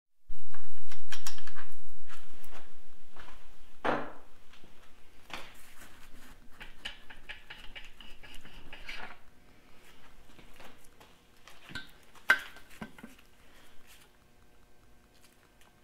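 Metal clinks, knocks and scraping as a Farmall Super M's oil pump is worked out of the engine block and handled, with a dull low thump just after the start and a scraping stretch in the middle.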